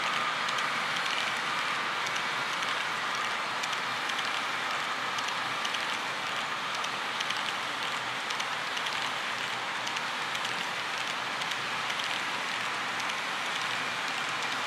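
Model autorack cars rolling by on metal track: a steady rushing wheel noise with a patter of small, irregular clicks.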